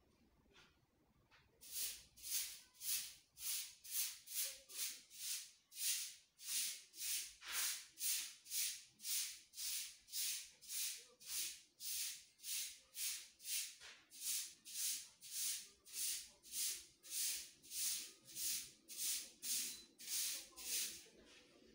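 A shaker-like hiss beating a steady rhythm, a little over two strokes a second, starting about two seconds in: a background music loop.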